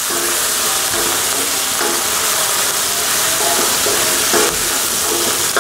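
Pork and scallions sizzling in hot oil in a wok over high heat, with a wooden spatula scraping and tossing them in repeated strokes.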